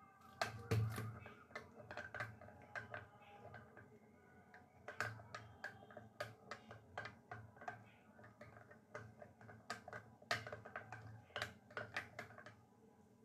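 Metal teaspoon clinking against the inside of a glass cup while stirring milk, a quick irregular run of light taps.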